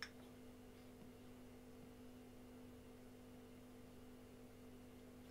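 Near silence: room tone with a steady low electrical hum, and one short click at the very start.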